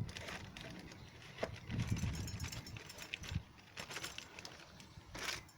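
Irregular light clicks and knocks of thermostat housing parts being handled, with a few duller low knocks about a second and a half to two and a half seconds in.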